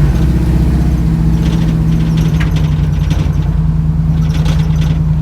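1972 Chevrolet Camaro RS engine running steadily with a deep, even hum, a few light clicks over it.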